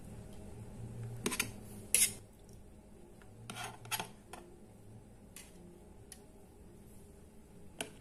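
Metal kitchen tongs clicking and tapping against a container as pieces of boiled tempeh are set into it. The light clicks and knocks are scattered, the loudest about two seconds in and near the end.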